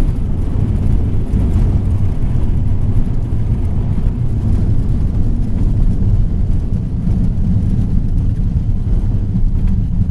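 Cessna 172 on its landing rollout, heard inside the cabin: the engine is at idle and a steady low rumble carries through, with no clear pitch to it.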